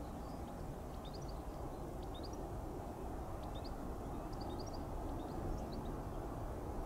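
Small birds chirping in many short, quick rising notes over a steady low rumble.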